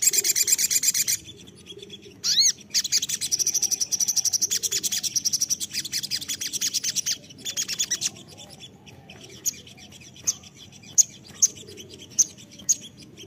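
Male olive-backed sunbird (sogon) singing in its cage: fast high-pitched trills, the longest about four seconds, then a string of sparse single sharp chips.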